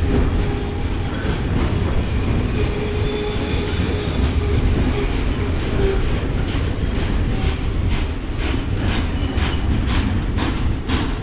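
Freight train rolling past at close range with a steady heavy rumble; from about halfway through, its wheels click over the rail joints in a regular rhythm of two to three clicks a second.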